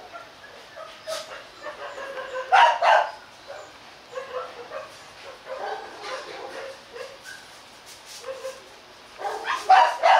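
Dogs barking: two loud barks close together about two and a half seconds in, softer dog sounds scattered through the middle, and a quick run of barks near the end.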